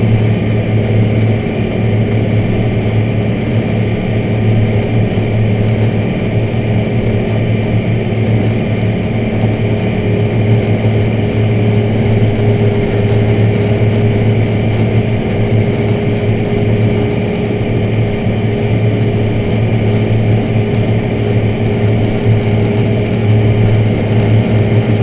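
Large tractor's diesel engine running steadily, heard from inside the cab as it pulls a dirt pan.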